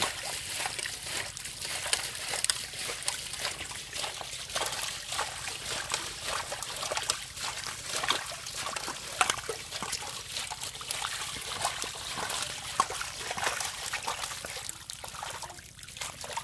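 Hundreds of stinging catfish thrashing in shallow muddy water, making a dense, irregular crackle of small splashes and slaps that thins a little near the end.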